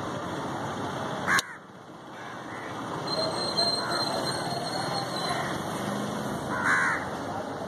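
Crows cawing: a loud caw about a second in, cut off by a sudden drop in level, fainter caws after it, and a loud burst of caws near the end, over a steady background of noise.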